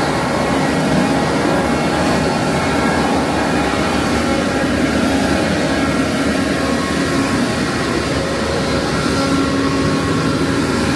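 Fog cannon truck's mist fan running: a steady, extremely loud roar with several steady whining tones over it.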